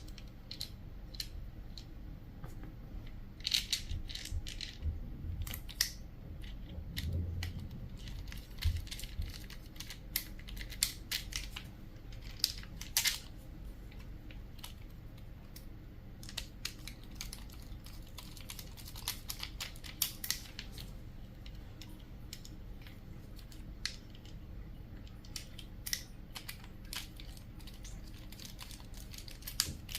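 Irregular light clicks and taps of small metal and plastic parts and a hand screwdriver being handled while an FSC/TCP 12-gram airgun magazine is reassembled, with a soft thump about seven seconds in.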